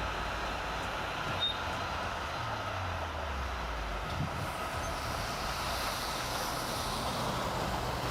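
Bulldozer's diesel engine running under a steady rushing noise, its pitch dropping lower about three seconds in as it eases off.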